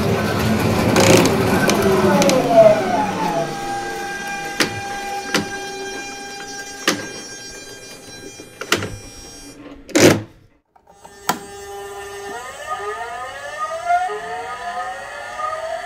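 Train-like whine of a homemade VVVF inverter driving a squirrel-cage induction motor: the motor's magnetic excitation noise, several tones at once. They glide at first, then hold steady with a few sharp clicks, and after a brief dropout about two-thirds in they rise together in pitch as the motor speeds up.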